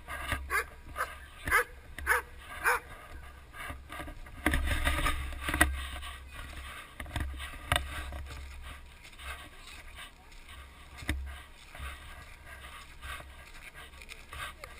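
Dogs barking several times, mostly in the first three seconds, over a low rumble of wind buffeting the microphone.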